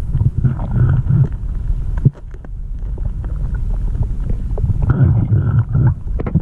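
Underwater sound of a diver breathing out through a regulator: two bubbling bursts, about a second in and again near the end, over a steady low rumble of water, with one sharp click about two seconds in.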